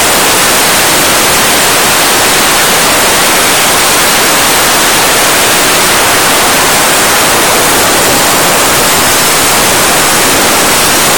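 Soda blaster blasting baking soda with compressed air through its nozzle: a loud, steady hiss without a break.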